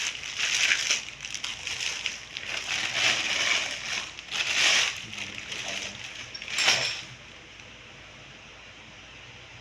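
Plastic being handled, rustling and crinkling in irregular bursts, with one sharp click near the end.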